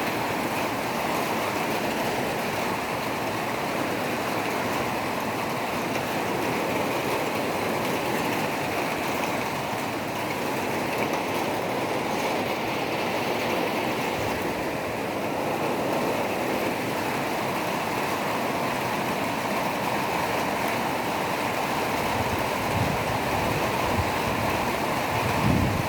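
Steady rushing of water, an even noise that holds the same level throughout, with a few short low thumps near the end.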